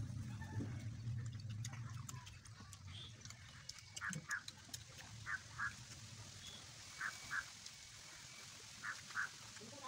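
An animal calling in short double notes, one pair about every one and a half to two seconds, starting about four seconds in.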